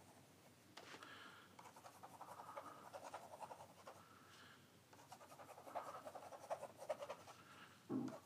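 Faint scratching of a paintbrush dragged through wet fluid acrylic paint on a board, drawing squiggly lines, in two spells of strokes with a short pause between.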